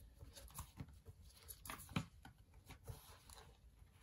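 Faint rustling and light ticks of paper pages being flicked through by hand.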